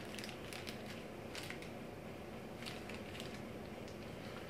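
Faint, intermittent crinkling of a plastic marinade packet being squeezed out over raw chicken.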